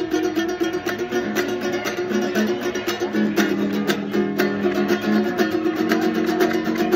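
Small-bodied acoustic guitar played solo, a steady run of quick picked and strummed notes.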